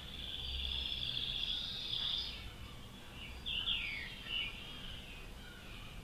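Nightingale singing: a rapid buzzing trill for about two seconds, then after a short pause a few sharp notes sliding down in pitch.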